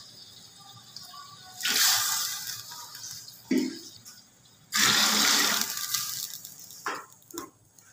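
Water poured from a glass into a pot of beef stock, splashing in twice, each pour a second or so long, with a few short knocks between and after.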